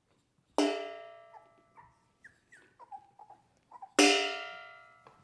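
A metal object is clanged twice, about three and a half seconds apart. Each strike rings and fades over about a second, as a noise stimulus for young puppies. Between the strikes come a few faint, short, high squeaks that fall in pitch, from the puppies.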